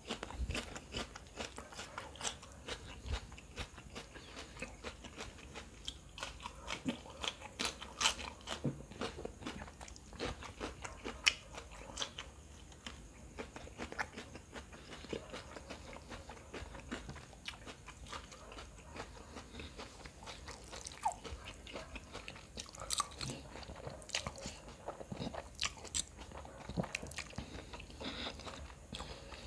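A person chewing and biting mouthfuls of noodles and devilled fish close to the microphone, with many sharp crunchy clicks and snaps at an irregular pace.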